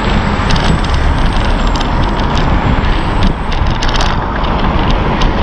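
Steady rushing wind noise on the microphone of a moving bicycle, over city traffic. Short rattling clicks run throughout.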